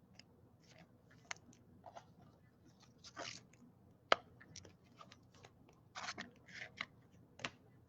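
Faint scattered clicks and short crinkly rustles of trading cards and plastic card holders being handled. The sharpest click comes about four seconds in, and there is a cluster of rustles about six seconds in.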